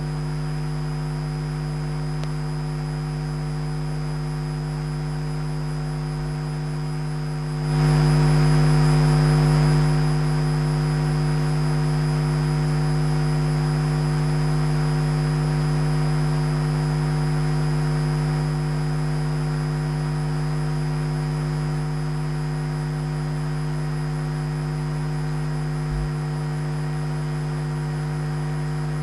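Steady electrical hum from an idle sound system: a low buzz with several steady overtones. About 8 seconds in, a wash of hiss joins it and the level rises, then steps back down in stages by about 22 seconds. There is a small click near 26 seconds.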